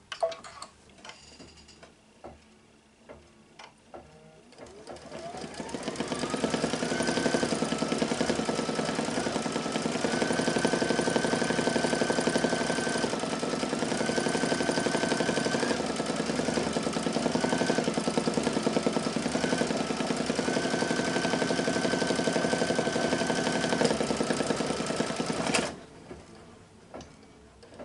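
Brother Luminaire embroidery machine stitching out a design. A few faint clicks come first; about five seconds in, a rising whine as the motor speeds up leads into fast, steady stitching. Its pitch dips briefly several times as the speed changes, and it stops suddenly near the end.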